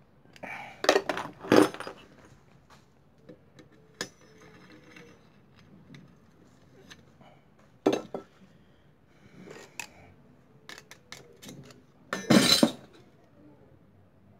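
Metal engine parts and hand tools clinking and clattering against the aluminium crankcase of a motorcycle engine during hand assembly, in scattered short bursts of knocks and clicks. The loudest clatter comes about twelve seconds in, with others about a second in and around eight seconds.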